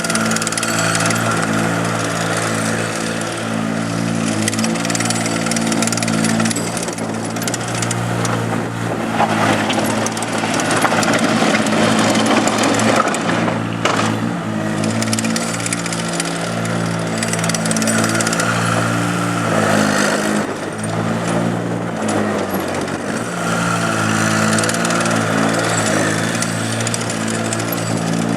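ASV RC30 rubber-track skid steer running and being worked, its diesel engine note steady with dips and swells as it takes load, busiest and loudest a third of the way through and again about two-thirds through.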